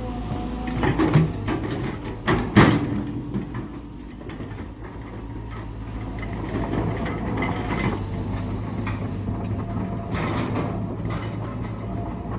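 Heavy earthmoving machinery's diesel engine running steadily, with two loud metallic clanks about one and two and a half seconds in.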